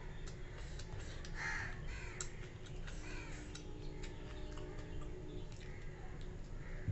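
A bird cawing three or four times, faint, over a low steady hum. There are a few soft clicks of eating by hand from a plate and bowl.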